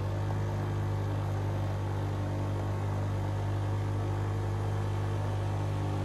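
Motorbike engine running steadily at an even speed, holding one low pitch.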